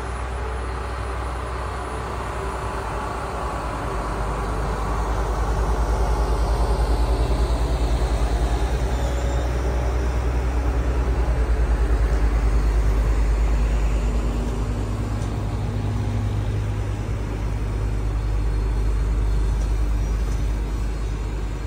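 Passenger coaches of a train rolling past: a steady heavy rumble of wheels on rails. It swells a few seconds in, eases slightly, then rises again near the end.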